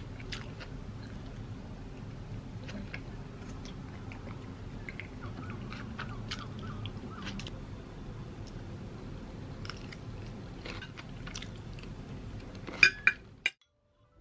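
Eating sounds: chewing, with short clicks of a metal fork against a ceramic plate of salad and sliced steak, and a few louder clinks near the end before the sound cuts off.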